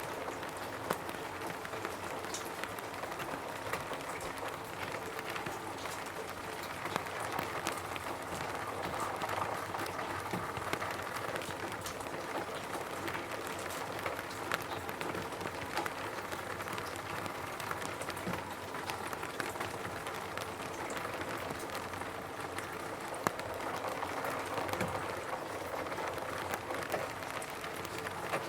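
Rain falling steadily on a roof: a dense, even patter of drops with many small sharp taps and now and then a louder single drop.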